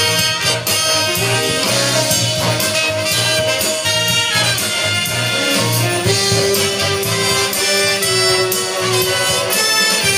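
Jazz ensemble music with brass to the fore, held and moving notes over a steady beat.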